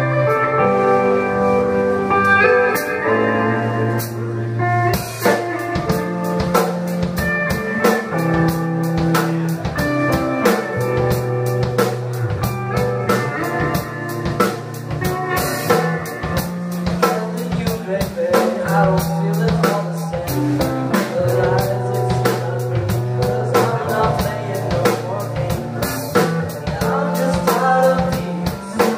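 Live alternative rock band playing an instrumental passage: sustained guitar and bass notes, with a drum kit settling into a steady beat about five seconds in.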